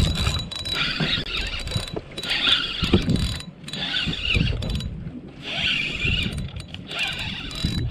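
Spinning reel being cranked in short bursts of about a second each with brief pauses, about four times: a whirring of the reel's gears and rotor as the lure is retrieved. Low wind rumble underneath.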